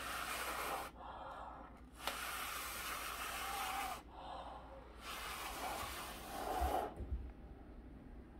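A person blowing hard on wet poured paint to push it across the surface: three long, hissing blows of about two seconds each, with shorter, softer breaths in between.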